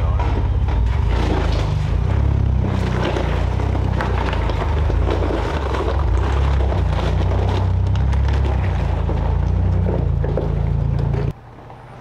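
Off-road vehicle driving: a steady low rumble of engine and tyres with scattered knocks and rattles, cutting off suddenly near the end.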